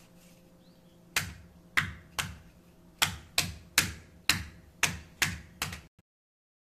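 Interlocking wooden deck tiles with plastic grid bases being set down and snapped together: about ten sharp clicks and knocks, roughly two a second, starting about a second in.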